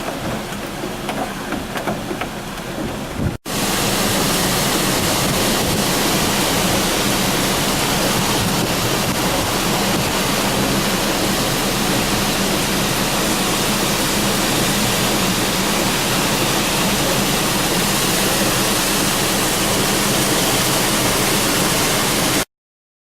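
Floodwater rushing, a loud, steady, unbroken roar of a river swollen by typhoon rain. Before a cut about three seconds in, a quieter pattering like rain. The sound stops abruptly near the end.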